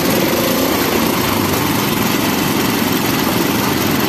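Engine-driven sugarcane juice crusher running steadily as cane is fed through its rollers.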